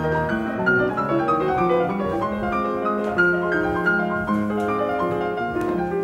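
Background piano music, a brisk run of short notes.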